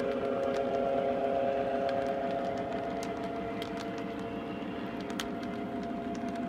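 Lionel O-gauge freight cars rolling past on three-rail track: a steady rumble of wheels with scattered sharp clicks, over a constant hum, easing slightly as the end of the train goes by.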